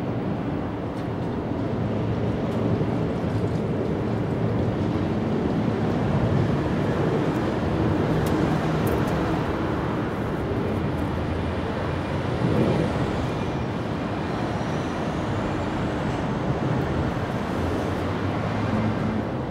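Steady outdoor background rumble, even and unbroken, with no distinct sounds standing out.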